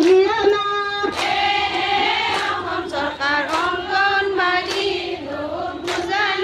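A group of women's voices singing together in unison, a song with long held notes.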